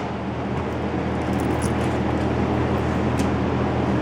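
Steady low mechanical hum with a rushing undertone from the home-built elevator's hoist machinery running during its first test run.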